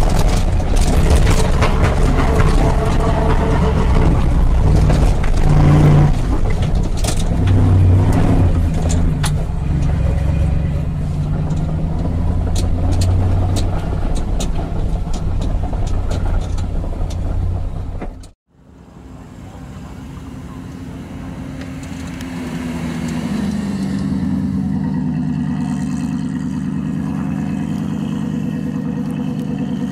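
Bowler off-road rally car's engine heard from inside the cabin, driving hard over rough dirt, with many knocks and rattles. After a sudden cut about two-thirds through, the car's engine is heard from outside, running steadily and rising a little in pitch.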